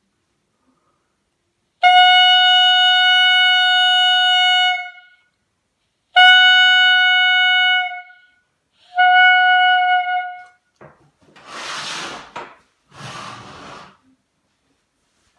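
Clarinet mouthpiece and barrel, with no body, blown as a first embouchure exercise: three steady held tones at one pitch, the first the longest. These are followed near the end by two short bursts of rustling noise.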